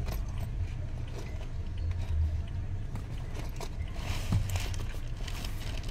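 Steady low rumble inside a stationary car's cabin, with soft rustling and small clicks from someone shifting in the back seat, busiest about four seconds in.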